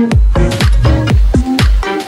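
Electronic dance music with a heavy, regular bass drum beat and falling bass notes.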